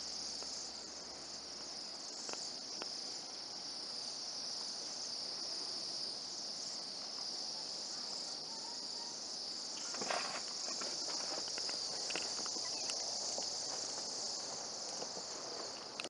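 A large flock of Bohemian waxwings calling together overhead: a continuous, high, buzzy trilling chorus from many birds at once. A brief louder noise cuts in about ten seconds in.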